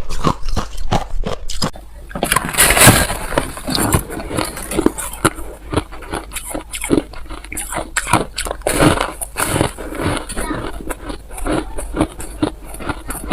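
Ice being bitten and chewed, a dense run of sharp crunches with a brief hissy rustle about two seconds in.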